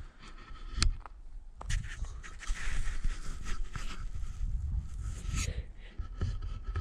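Footsteps crunching and shuffling on dry leaves and loose stones, with rustling and knocks from handling the handheld camera. A sharp knock comes about a second in, and dense crunching follows for several seconds.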